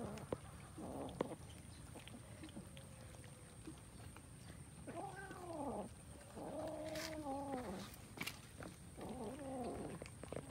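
Cats crowded around a food tray yowling while they eat: low, drawn-out calls that rise and fall in pitch, three long ones from about halfway on, with a few sharp clicks in between.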